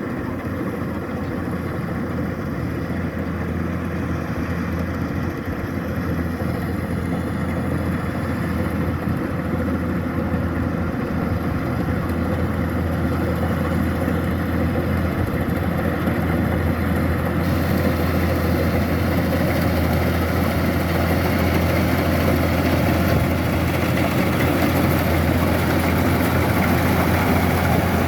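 Kubota DC-105X combine harvester running steadily, its diesel engine hum growing gradually louder, with a brighter hiss of machinery added about two-thirds of the way through.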